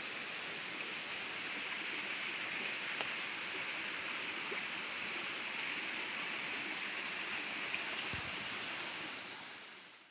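Steady rushing of flowing stream water, with a few faint clicks, fading out near the end.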